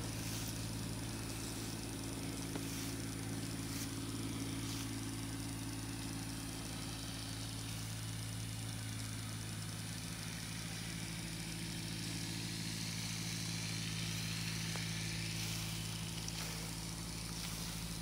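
Steady low engine hum, like an engine idling at a constant speed, unchanging throughout.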